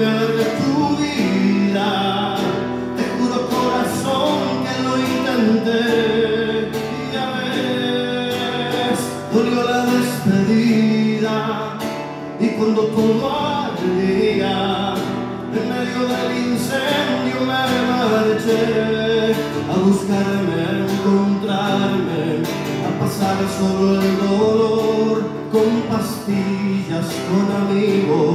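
A man singing into a microphone while strumming an acoustic guitar in a live solo performance.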